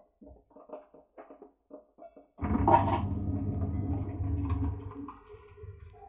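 Bosch dishwasher in its rinse cycle, heard muffled from inside a sealed case in the top rack. Scattered short knocks and drips give way, a little over two seconds in, to the sudden start of water spray with a low hum, which eases off near the end.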